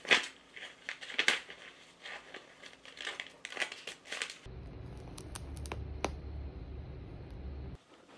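A kitten pawing and scratching at a large sheet of paper, which rustles and crinkles in short scratchy bursts. After about four seconds a low steady hum takes over, with a few sharp clicks.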